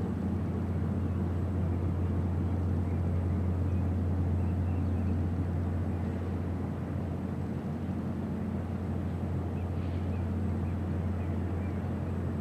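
A steady, unbroken low engine hum, with a few faint high chirps about halfway through and again near the end.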